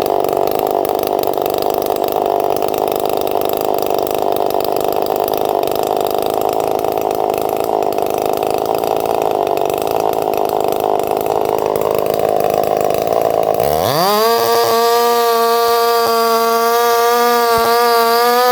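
Two-stroke chainsaw freshly rebuilt with a new piston and crankshaft, running under load in a cut for about thirteen seconds. It then comes free and revs up in a quick rising whine to a steady high-pitched wide-open-throttle scream that holds to the end.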